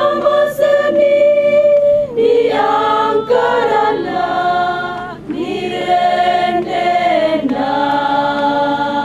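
A small choir of mostly women's voices singing unaccompanied, in slow phrases of long held notes.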